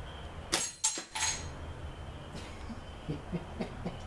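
Arc-welder transformer's high-current secondary arcing through a small metal heat sink clamped across its leads. A few sharp cracking pops in the first second and a half as the metal fuses apart, over the transformer's steady buzz.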